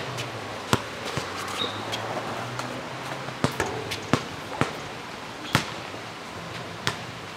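Basketball bouncing on an asphalt court: about nine separate, unevenly spaced thuds.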